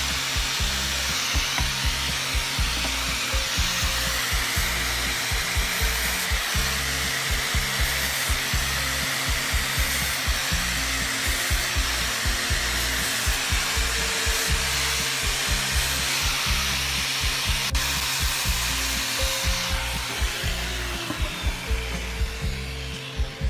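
A power tool working wood, a steady hiss that eases off near the end, over background music with a steady beat.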